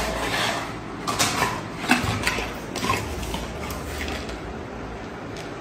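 Hard plastic dog toy knocking and scraping on a terrazzo floor as a Labrador plays with it: a few scattered clacks in the first three seconds, quieter after.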